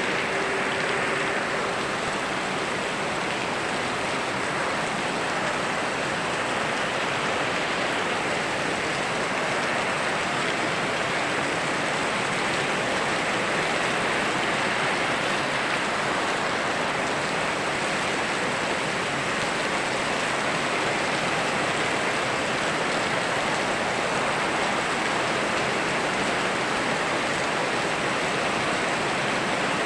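Steady rain falling together with a flowing stream: an even, unbroken rush of water noise.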